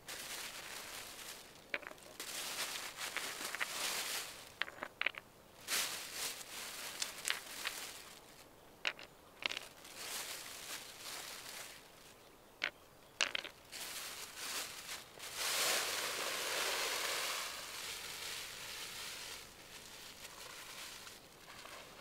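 Clear plastic bag and crumpled material being handled: irregular rustling and crinkling with a few sharp clicks and crunches, and a longer, louder stretch of rustling past the middle.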